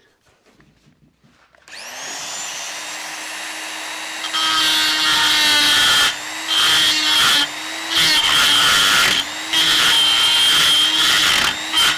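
Die grinder starting up about two seconds in and running at speed with a steady whine. From about four seconds in it grinds into a cast iron gear wheel in repeated passes with short breaks, opening out a crack into a V ready for silicon bronze welding.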